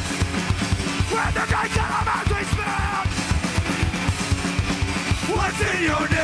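Live hardcore punk band playing: distorted electric guitars, bass and fast, driving drums, with shouted vocals over the top in places.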